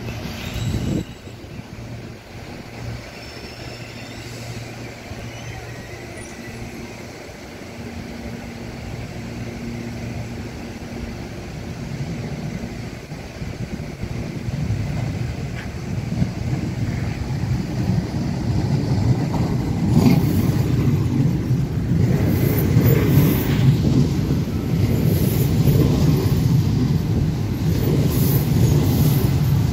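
CPTM Série 9500 electric multiple-unit train approaching and pulling into a station platform. Its running noise grows steadily louder over the second half, with brief high squeals over the last ten seconds as it passes close by and brakes.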